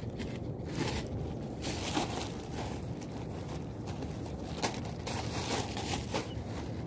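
Plastic bag crinkling and rustling a few times as it is handled, over a steady low rumble.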